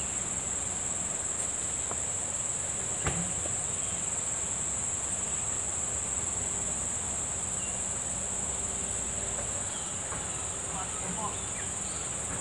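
A steady, high-pitched chorus of insects shrilling without a break. A single sharp click sounds about three seconds in.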